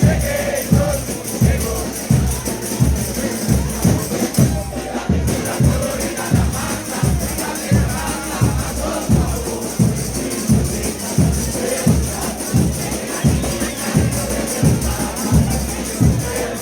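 Frevo orchestra playing in the street, brass over percussion driven by a steady bass drum beat, with crowd noise around it.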